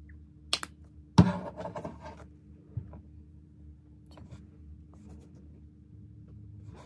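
A plastic tube of face cleanser handled and squeezed onto a hand: a sharp click about half a second in, then a loud knock followed by about a second of crackly rustling as the product comes out. A few faint taps follow, over a low steady hum.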